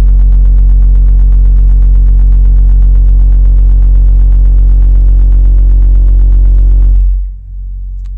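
Stealth AL-250B 25 cm car subwoofer in an Axton CAB258 bass-reflex box playing a very loud, steady low sine test tone near 46 Hz, being pushed from about 70 W to 300 W and reaching about 131 dB on the SPL meter. The tone drops away about seven seconds in.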